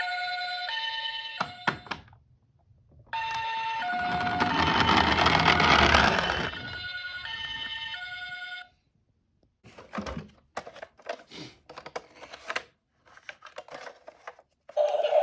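Electronic two-tone ambulance siren in the Japanese pee-po pattern, alternating between two pitches. It sounds twice; the second run is partly covered by a loud rushing noise for a couple of seconds. It is followed by a few seconds of light clicks and rattles.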